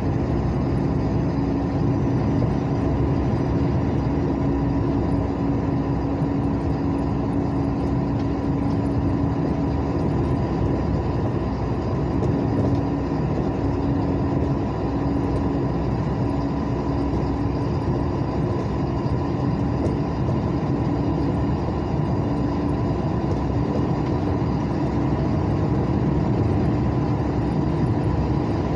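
Steady road noise of a car cruising on a highway, heard from inside: tyres running on asphalt and the engine under way, with a steady low hum.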